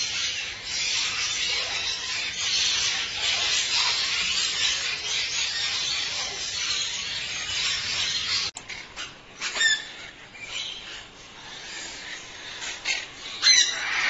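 Parrots chattering in a dense, steady high-pitched din. After a sudden cut it is quieter, with a few short, sharp squawks, the loudest near the end.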